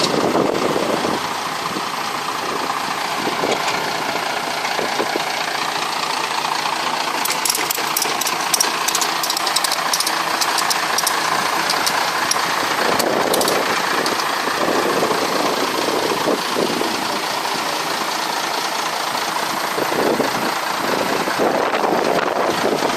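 Boat engine running steadily at idle, with a run of light clicks from about seven to thirteen seconds in. The engine is broken and due to be replaced with a new one.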